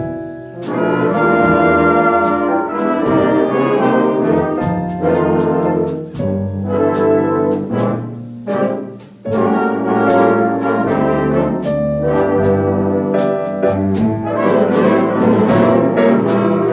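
School jazz band playing: saxophones, trumpets and trombones in full ensemble chords with electric guitar and bass, over a beat of regular percussion strokes. The band drops back briefly just before the middle, then comes back in loud.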